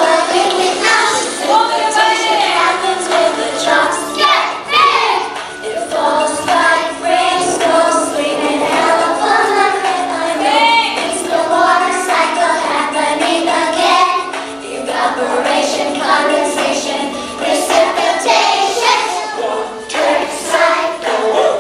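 A group of young children singing an action song together.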